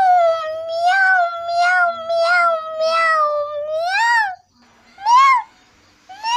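Several kittens meowing at once: one long, drawn-out meow with shorter meows overlapping it, ending about four seconds in, then two short separate meows.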